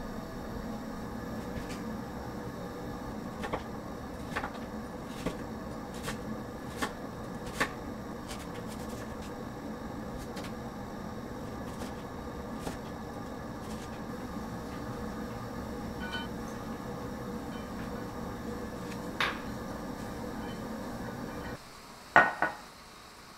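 Chef's knife slicing raw kohlrabi on a wooden cutting board: a series of sharp taps of the blade meeting the board, about one a second, over a few seconds. Near the end comes a louder double clunk of a glass bowl against a stone counter.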